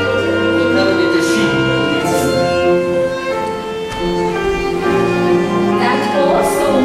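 Orchestral accompaniment to a stage musical number without singing: bowed strings, violins and cellos, playing slow, held notes.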